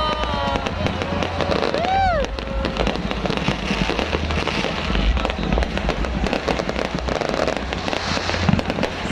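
Fireworks going off without pause: dense crackling with low booming underneath, and a brief whistle that rises and falls about two seconds in.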